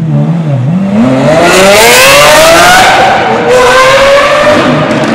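Lamborghini Aventador SVJ's V12 accelerating hard, revs climbing steeply, with a quick upshift about three and a half seconds in before the revs climb again.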